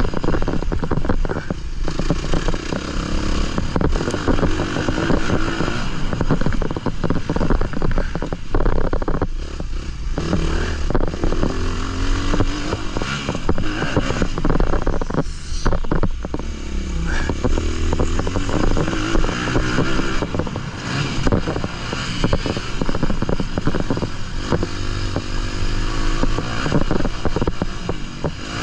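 Onboard sound of a Honda 250 motocross bike ridden hard around a dirt track: the engine revs up and drops back again and again as the throttle is opened and shut through the corners and jumps. Wind rush and repeated knocks and clatter from the bike over the rough ground run underneath.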